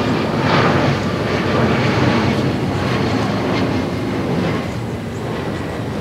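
Loud, steady rumble of a passing vehicle, with a faint high whine running through it.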